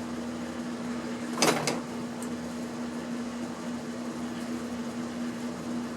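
Steady low hum throughout, with one sharp snip about a second and a half in: a metal end being cut off a piece of scrap wire with cutters.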